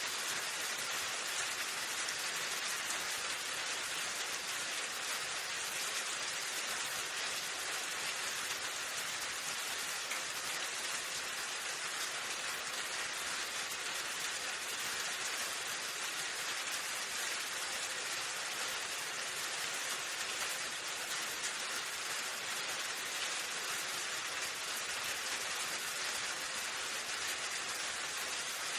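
Steady rain falling, an even hiss of many drops with no pauses or changes.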